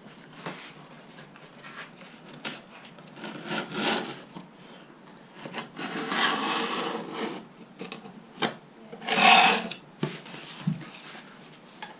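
Screwdriver scraping and digging out the core of a composite model glider wing along the hinge line, in irregular scratchy strokes, the loudest about nine seconds in.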